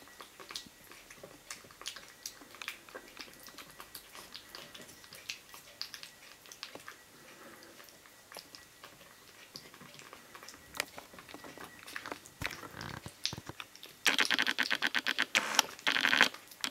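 A kitten eating wet food from a steel bowl: small, wet chewing and smacking clicks. About two seconds from the end, a much louder, rapid, buzzing rattle takes over.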